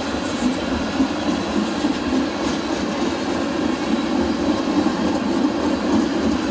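Tank cars of a freight train rolling past on the near track: a steady rumble of steel wheels on rail, with a sharp clack now and then over the rail joints.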